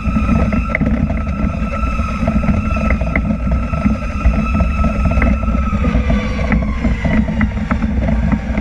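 Pierce tiller ladder truck under way, heard from the open tiller cab: a heavy rumble of engine and road with wind on the microphone and scattered rattles. A steady high whine holds, then slowly drops in pitch over the last few seconds.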